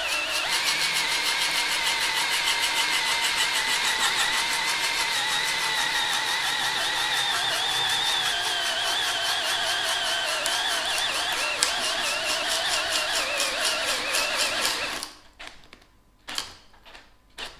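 Cordless power driver hammering rapidly under load, a fast even rattle of blows that runs steadily and then stops abruptly about 15 seconds in, followed by a few short knocks.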